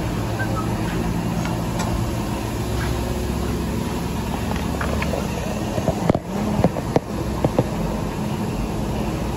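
Steady hum of running shop machinery, with a few sharp knocks and clanks of metal and wood handling about six to seven and a half seconds in.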